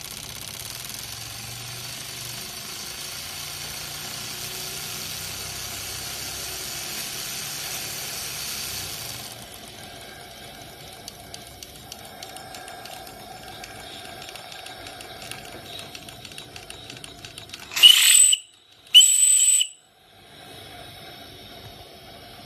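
Live-steam model twin-cylinder steam engine running: steam hisses steadily for about the first nine seconds, then the engine's fast, light mechanical ticking carries on. Near the end, two short loud steam-whistle blasts, about a second apart.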